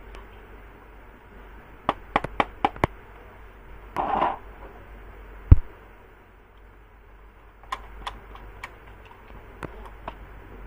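Sharp clicks and knocks: a quick run of five clicks about two seconds in, a short scraping burst about four seconds in, one loud knock a little later, then scattered fainter clicks.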